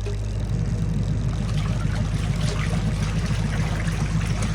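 Twin-tub washing machine's wash tub agitating a load of clothes: a steady motor hum with water and clothes churning, picking up about half a second in.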